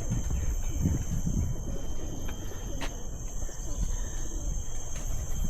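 Steady high-pitched drone of insects in tropical garden vegetation, running unbroken, over a louder irregular low rumble on the microphone. A single short click about three seconds in.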